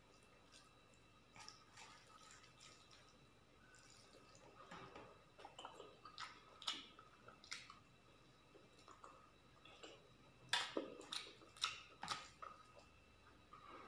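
Quiet eating sounds: soft wet squishes and clicks of rice and chicken curry being mixed by hand on a steel plate, with chewing. A louder run of clicks comes about ten and a half seconds in.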